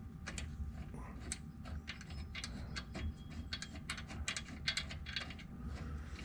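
Irregular small metallic clicks and ticks, several a second, as the track bar bolt is worked by hand to start its threads in the nut.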